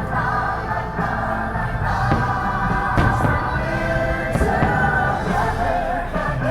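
Festive show music with a choir singing, plus a few sharp cracks about two and three seconds in.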